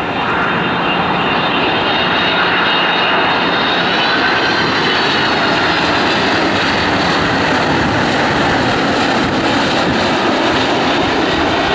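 Boeing 767-300's twin jet engines at approach power as it passes close by on final approach with gear down, a loud steady rushing noise with a high whine above it that shifts slightly in pitch during the pass. The noise swells in the first moment.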